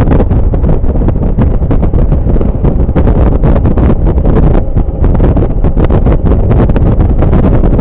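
ALS bus's diesel engine running loud through an aftermarket 'Bogor' exhaust, a steady deep, rough rumble with brief dips about two and a half and five seconds in.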